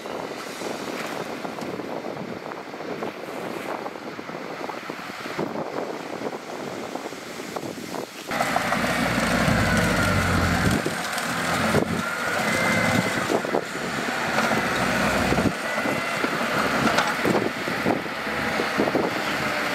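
Diesel construction machinery working. A steady engine noise turns abruptly louder and deeper about eight seconds in, with faint wavering high squeals over it.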